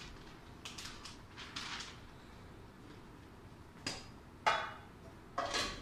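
Paper rustling, then a few clanks of metal pots and lids, the loudest about four and a half seconds in with a brief ring, as a biryani pot is sealed for dum steaming.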